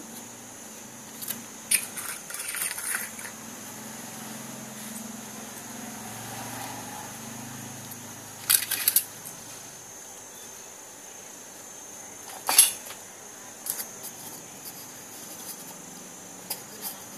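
Thin tin-can metal being handled and set down on a stone countertop: scattered light clinks and taps with some rustling, the sharpest knock about twelve seconds in.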